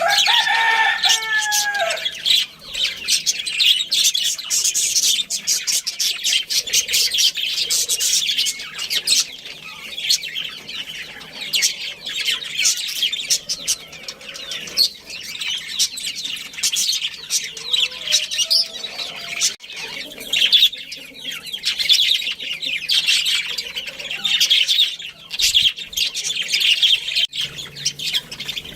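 A colony of budgerigars chirping and chattering continuously in rapid, high-pitched bursts. A lower, falling call is heard right at the start.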